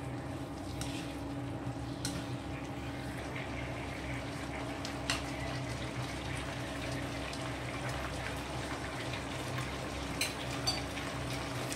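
Cornstarch-thickened black-bean sauce simmering and bubbling in a wok, over a steady low hum. A few light clicks of a spatula and spoon against the pan, including some near the end.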